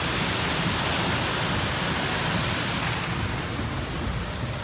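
Heavy rain falling on a vehicle, heard from inside the moving cabin as a steady hiss over a low engine and road rumble.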